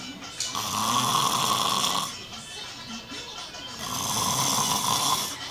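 A man snoring loudly: two long snores, each about a second and a half, about three and a half seconds apart, with quieter breath sounds between.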